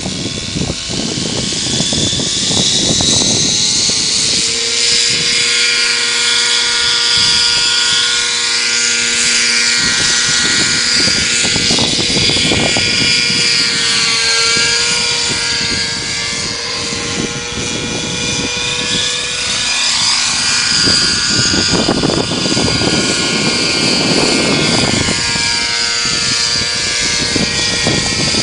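Nitro-engined radio-controlled model helicopter flying, its glow engine and rotors making a steady high whine that rises and falls in pitch as the throttle changes.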